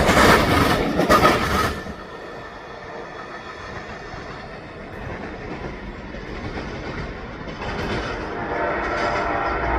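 Amtrak passenger train passing close by, its wheels clattering over the rail joints. The loud passing noise drops off sharply about two seconds in, leaving a much fainter rumble that grows a little louder again near the end.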